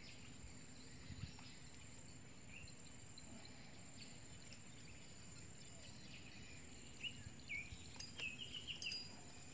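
Faint riverside ambience: a steady insect hum, with a bird giving a couple of short chirps about seven seconds in and a quick run of about five near the end. A couple of faint clicks near the end.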